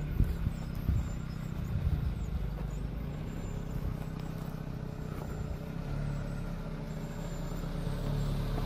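Nissan March's four-cylinder engine running steadily as the car rolls over a rutted mud track, with a few thumps in the first two seconds.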